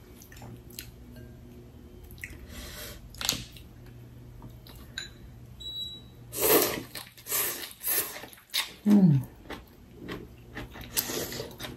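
People eating noodle soup from bowls with chopsticks: light clicks of chopsticks on the bowls, chewing, and slurps, the loudest about six and a half and eleven seconds in. A short hum near nine seconds.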